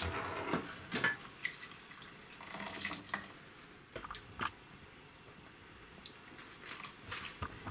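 Wire-mesh skimmer scooping parboiled rice out of a pot of hot water, with water dripping and splashing back into the pot and light clicks of the metal skimmer against the pot and bowl.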